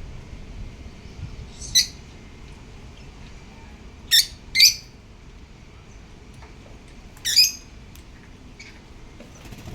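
Pet African lovebirds giving short, high-pitched chirps: four loud ones a second or more apart, with a fainter one near the end.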